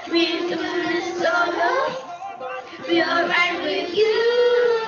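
Children singing together as a virtual choir, their separately recorded voices mixed into one track. The notes are held, the longest near the end.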